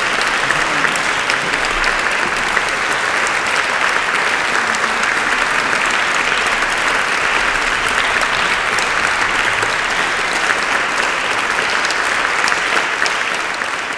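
Audience applauding: steady, dense clapping that begins to fade near the end.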